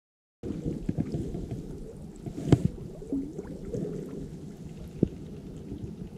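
Muffled low rumble picked up by an old GoPro 6 camera's microphone, with scattered handling knocks and clicks; a sharp click stands out about two and a half seconds in. It cuts in abruptly just after the start.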